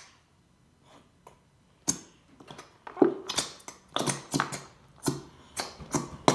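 Irregular series of short taps and knocks from a plastic glue bottle being shaken and tapped over a bowl to get the last thick glue out. It starts about two seconds in, at two to three knocks a second.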